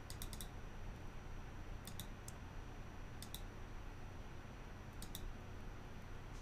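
Computer mouse clicking in quick groups of two to four, a group about every one and a half seconds, over a steady faint background hum.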